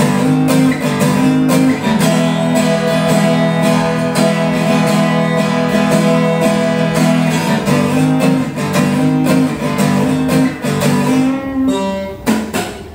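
Yamaha F310 steel-string acoustic guitar being played, chords strummed and picked in a steady rhythm; the playing stops near the end, with a last chord ringing out. It is strung with light-gauge strings.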